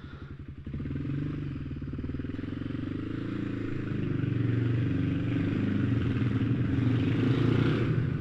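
Motorcycle engine running as the bike pulls away at low speed, louder about a second in, its note rising gradually over the next few seconds and then holding steady.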